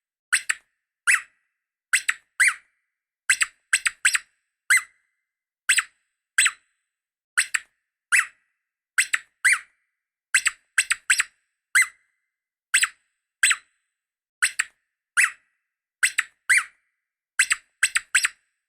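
Small dog yapping: a long series of short, high-pitched yips, singly and in quick pairs, about one and a half a second.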